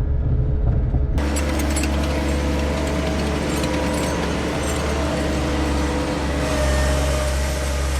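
Skid steer engine running steadily. About a second in, a rattling, clattering hiss sets in over it.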